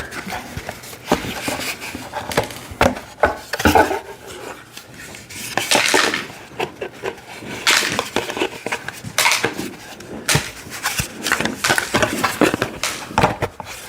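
Hard toy workbench parts and small nuts and bolts clattering and knocking together as they are handled and sorted, in irregular clicks and knocks, with a brief rustle about six seconds in.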